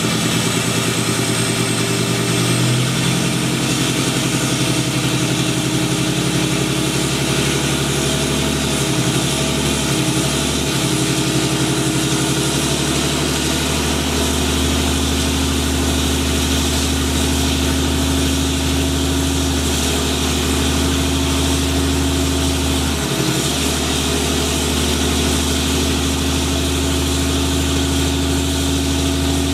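Dodge Ram's Cummins inline-six turbo-diesel held at high revs for a burnout, the rear wheel spinning on the pavement. The revs climb about three seconds in and dip briefly a couple of times, around ten seconds in and again near twenty-three seconds.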